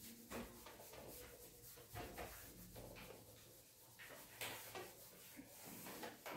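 Cloth duster wiping a whiteboard: faint, irregular swishing strokes as the marker writing is rubbed off.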